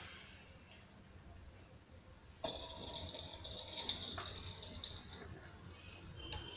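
Hot caramel poured from the pan into a steel bowl: a sudden hissing pour starts about two and a half seconds in, lasts a couple of seconds, then fades.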